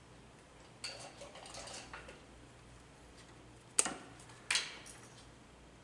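Wire cutters snipping the black conductor to length at the breaker: a light rustle of handling, then two sharp snaps a little under a second apart near the middle.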